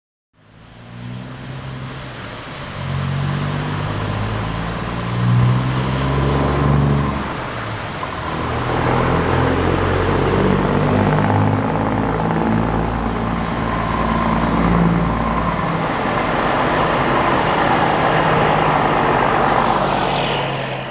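Scania NextGen S500 truck with an open, straight-through exhaust pulling away and accelerating past, its engine note rising and changing in steps as it moves through the gears, loud and close as the tractor and trailer pass.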